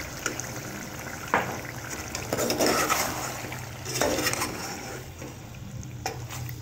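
Slotted metal spoon stirring and scraping in a metal cooking pot as yogurt is mixed into chicken cooking in oil, with a few sharp knocks of the spoon against the pot.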